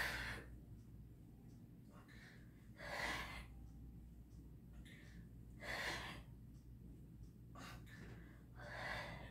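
A woman breathing hard through a set of crunches: a short breath in, then a louder puff of breath out, about every three seconds, four times.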